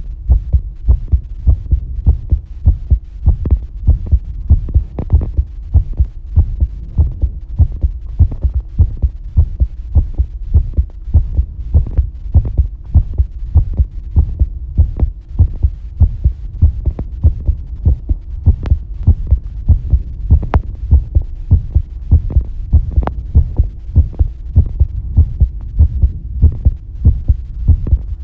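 A human heart beating, close-recorded: a steady, quick run of low lub-dub thuds, with a faint steady hum underneath.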